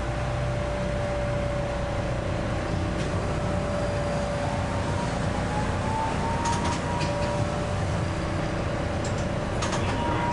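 Iyotetsu streetcar running along street track, heard from on board: a steady low rumble with a constant hum, and a whine that slowly rises in pitch from about halfway through. A few sharp clicks come around two-thirds of the way in and again near the end.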